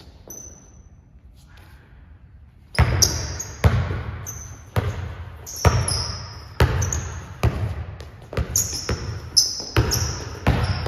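Basketball dribbled on a hardwood gym floor, starting about three seconds in and going on at roughly one bounce a second, mixed with short high-pitched sneaker squeaks.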